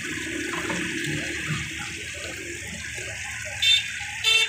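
Tomatoes, green chillies and spices sizzling in oil on a large flat tawa griddle: a steady frying hiss. Near the end come two short metallic clinks about half a second apart.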